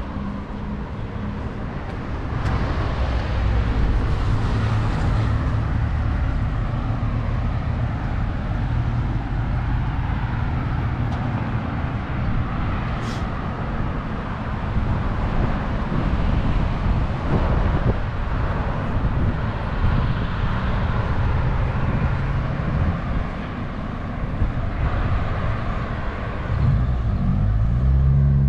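Street traffic: cars and other motor vehicles running and passing in a steady low rumble, with an engine revving up near the end.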